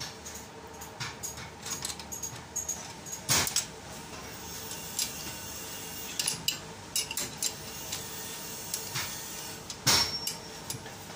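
Metal clinking as steel high-pressure fuel lines and a spanner knock against the union fittings of a rotary diesel injection pump while the line nuts are fitted and tightened. Scattered light clicks, with two louder knocks, one about three seconds in and one near the end.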